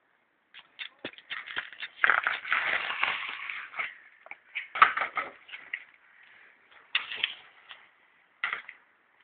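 BMX bike riding on pavement: a stretch of rolling, scraping noise about two seconds in, and a series of sharp clattering knocks from the bike's landings and hops, the loudest about five seconds in.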